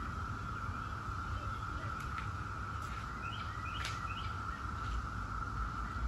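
Brood X periodical cicadas singing in chorus, a steady unbroken drone, with a few short bird chirps about three to four seconds in.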